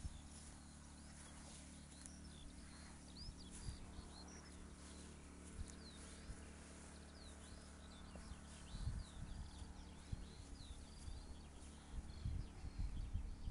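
Small birds singing faintly, a steady run of many short, quick chirps and twitters, over a low steady hum. A few soft low thuds come about two thirds of the way in and again near the end.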